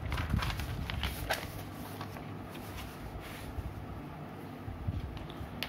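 Paper notebook pages being turned and rustled, as short crackles in the first second or so and again around the middle, over a steady low hum, with a single sharp click near the end.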